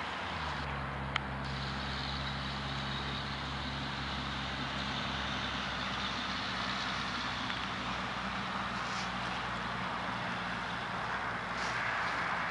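An engine running steadily, a low hum under a steady hiss, with one small click about a second in.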